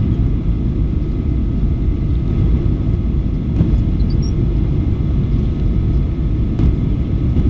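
Steady low rumble of a Boeing 737-900's jet engines and rushing air, heard inside the passenger cabin on final approach, with a faint steady whine above it.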